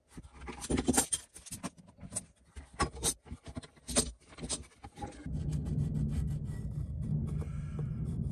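Steel-bar clamps being handled on a glued-up pine holder: irregular clicks, rattles and scrapes of the clamp jaws, screws and bars against wood and metal. About five seconds in, a steady low hum starts.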